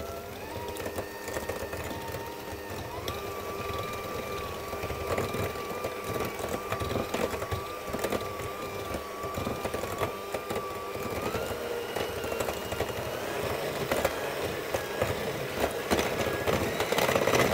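Electric mixer beating milk into creamed butter and sugar: a motor whine that steps up in pitch several times as the speed is raised, with scattered clicks and knocks.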